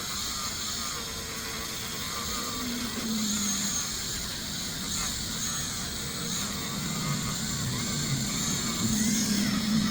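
Small power tool running steadily, buffing a copper-plated pendant with red rouge polishing compound.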